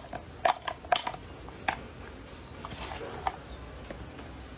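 Wooden chopsticks clicking against a glass jar and a ceramic bowl as sticky shredded papaya pickle is scraped out and lifted. There are several sharp clicks in the first two seconds and a single one a little after three seconds.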